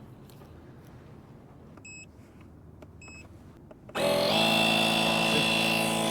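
Two short electronic beeps, then about four seconds in a portable tire inflator's compressor starts abruptly and runs steadily, pumping air into a flat car tire.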